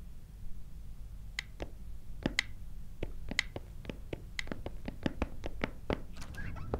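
Clock ticking. The ticks start about a second and a half in, first in pairs, then come faster and faster until there are several a second near the end.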